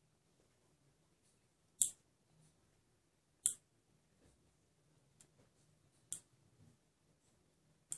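Small pet nail clippers snipping a two-week-old puppy's claws: four sharp clicks spaced roughly two seconds apart, with a fainter one between the second and third.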